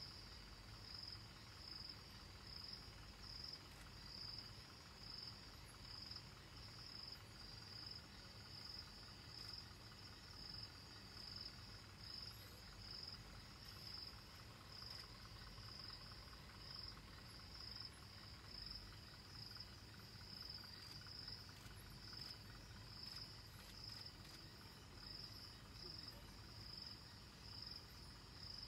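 Faint insects chirping in a steady, evenly pulsing high trill, with a faint low rumble underneath.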